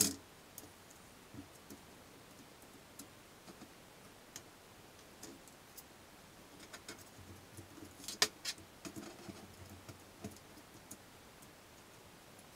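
Yellow one-handed trigger bar clamps being set and tightened on a wooden glue-up: scattered clicks and knocks of plastic and metal on the workbench, busiest about seven to ten seconds in, with one sharp click right at the start and the loudest just after eight seconds.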